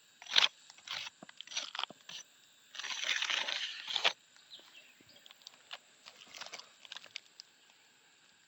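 Asphalt roof shingles crackling and crunching as they are handled and lifted: a few short sharp crackles, then a longer crackle about three seconds in, fading to faint ticks.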